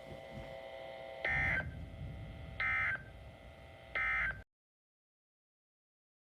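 Emergency Alert System end-of-message (EOM) data bursts: three short buzzy digital tone bursts about 1.3 seconds apart over a faint steady hum, marking the end of the warning broadcast. The signal then cuts to silence.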